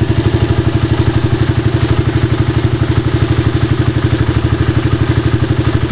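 Suzuki Yes 125's single-cylinder four-stroke engine idling through a Roncar aluminium aftermarket exhaust. It gives a steady, even putter of about ten beats a second, with no revving.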